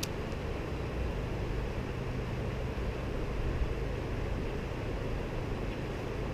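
Steady rushing of river current flowing through a shallow riffle.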